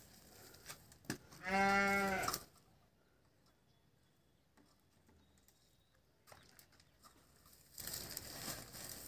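A cow mooing once: one steady call lasting about a second, the loudest sound here. Near the end comes soft rustling as a stick is worked through weeds and debris.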